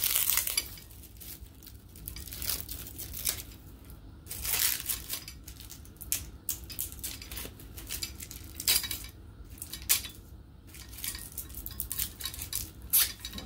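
Plastic protective wrapping being torn and crinkled off the stand's metal parts, with irregular crackling and a few light metal clinks.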